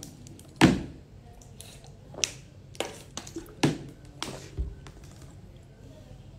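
Thin plastic water bottle crackling as it is gripped and handled: a run of about seven sharp crinkles over four seconds, the first the loudest.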